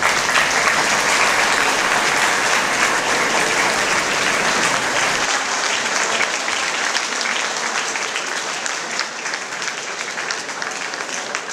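Audience applauding. The clapping is strongest at first and slowly dies down.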